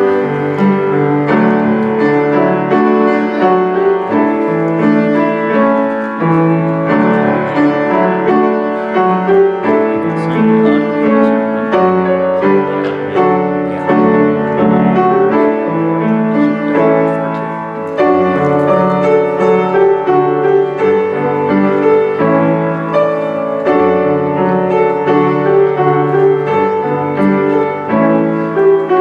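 Solo piano playing a slow, continuous piece of chords and melody.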